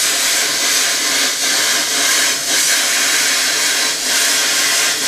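Plasma cutter torch cutting through steel plate: a loud, steady hiss of the arc and air stream, with slight dips in level.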